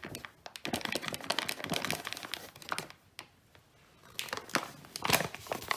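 Flour bag crinkling and rustling as plain flour is poured out, for about three seconds, then again after a short pause about four seconds in.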